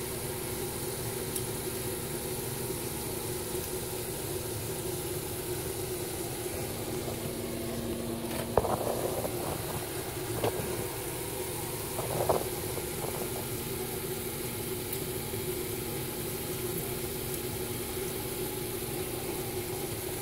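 A steady, engine-like motor hum, with a few short knocks and clatters a little under halfway through.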